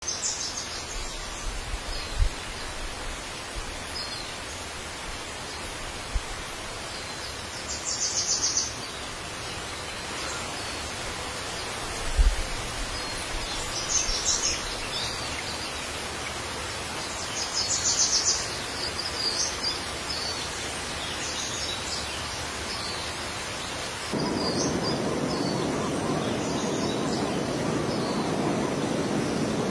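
Outdoor ambience: a steady hiss with short high bird chirps and trills every few seconds, and two low thumps. About 24 seconds in, the background jumps to a louder, lower rushing noise.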